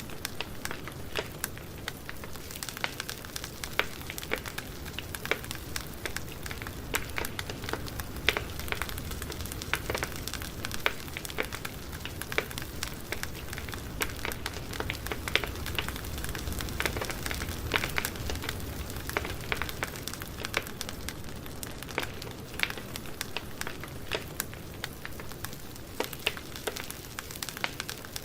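Campfire burning: wood crackling with many irregular sharp pops over a steady low rumble.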